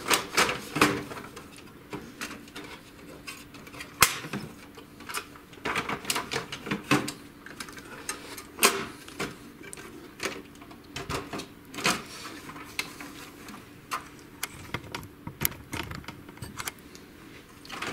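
Irregular clicks, knocks and light rattles of an HP LaserJet 6L laser printer's plastic housing being handled, as a cover is slid into place and latched and the printer is turned on its side.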